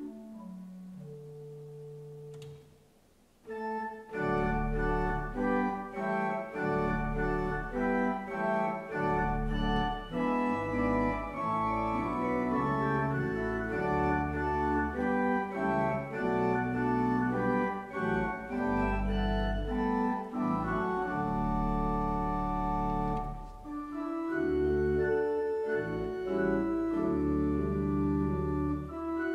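Pipe organ playing. A few soft held notes open, then comes a brief near-quiet gap about three seconds in, and from about four seconds on full sustained chords sound over deep pedal bass notes.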